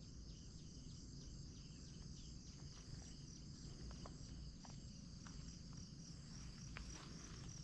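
Insects chirping together in a steady, high, pulsing trill, with scattered short ticks and a faint low rumble underneath.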